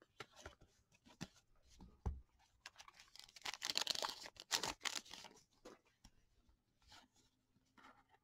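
Hockey card pack wrapper crinkling for a couple of seconds, about three seconds in, as the cards are drawn out of the opened pack, with light clicks and rustles of cards being handled before and after.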